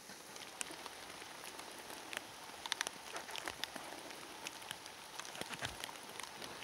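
Steady rain falling in the forest, with many sharp ticks scattered through it and a soft low thump a little before the end.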